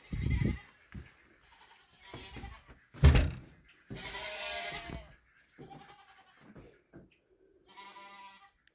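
Goats bleating several times, each call a separate cry, the longest about four seconds in. A single sharp thump about three seconds in is louder than any of the calls.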